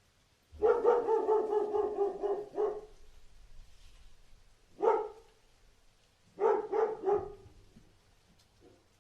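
Dog barking: a quick run of barks for about two seconds, then a single bark, then a tight burst of two or three barks, with a faint last one near the end.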